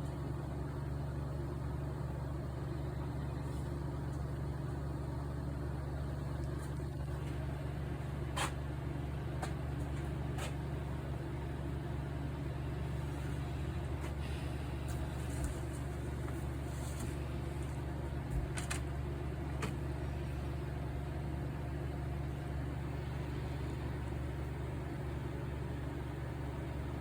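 Steady low machine hum with a few light clicks scattered through it.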